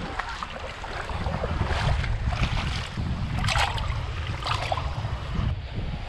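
Small waves washing in over a pebble shore, with several louder rushes of water, and wind rumbling on the microphone.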